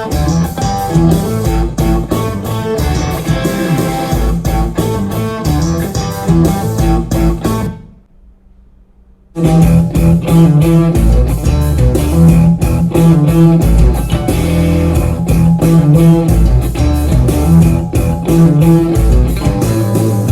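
Guitar-driven rock music with bass and a steady beat, played through a Bluetooth speaker. It stops for about a second and a half about eight seconds in, then comes back a little louder with fuller bass.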